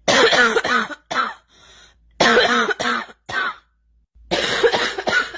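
A girl coughing in three fits of several quick, hacking coughs each, separated by short pauses with faint breaths between them.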